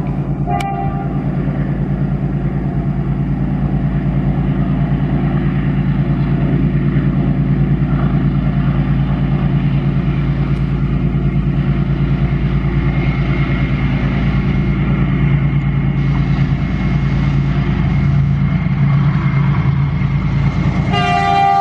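WDG4G diesel locomotive's 12-cylinder GE engine running as it approaches, a steady low drone that grows slightly louder. A horn blast cuts off just under a second in, and the horn sounds again right at the end.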